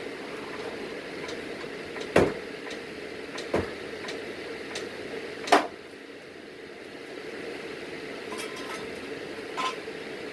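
Metal clanks from jacking up a car: three sharp knocks a second or two apart, then a few fainter clicks near the end, over a steady hum.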